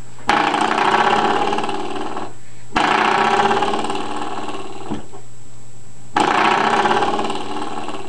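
Spring door stopper flicked three times, each twang ringing for about two seconds and fading.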